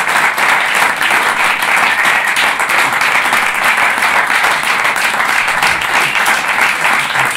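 Audience applauding steadily, a dense patter of many hands clapping at the end of a live jazz set.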